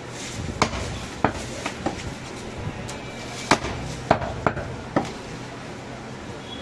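Heavy butcher's knife chopping goat shoulder meat and bone on a round wooden block: about eight sharp, irregular knocks, the loudest about halfway through.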